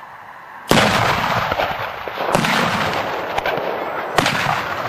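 Black-powder cannon shots: a sharp boom under a second in, then two more about a second and a half apart, with the rumble of the shots carrying on between them.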